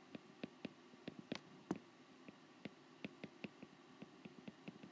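Faint, quick clicks of a stylus tip tapping a tablet screen during handwriting, irregular at about four or five a second.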